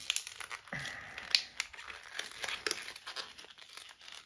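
Clear plastic toy packaging being handled and pulled apart: irregular crinkling and crackling with scattered sharp clicks.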